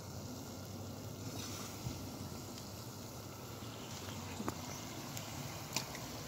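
Potato slices frying in hot oil in a cast-iron pot: a steady sizzle with a few sharp pops.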